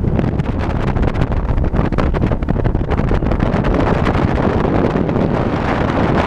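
Heavy wind buffeting on the microphone of a motorboat running at speed, over the steady rush of water and the outboard motor.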